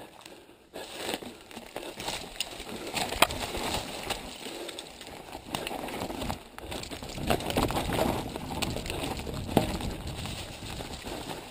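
Mountain bike riding over a dry dirt singletrack: continuous tyre noise on the trail, with frequent clicks and knocks as the bike rattles over bumps and stones.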